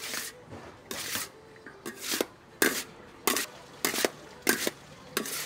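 Wooden-handled spatulas scraping and clattering against a large stainless steel bowl as cooked rice is tossed and mixed. There is a short scrape about every two-thirds of a second, about eight in all.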